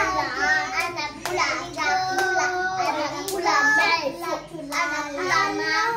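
Young children singing and chanting together in high voices, with a few hand claps.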